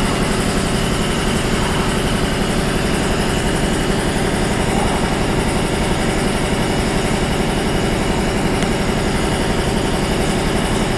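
Steady machine hum at an even level, with a low drone and a few steady tones, like a motor or engine running continuously.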